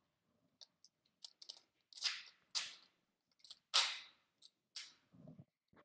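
An uneven series of sharp cracks and clicks from firearms at a range, about ten in all. The loudest come about two, two and a half and four seconds in, each with a short ringing tail.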